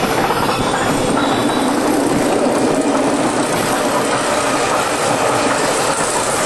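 Mine-train roller coaster cars running along the steel track, a steady rolling rumble with a faint even hum underneath.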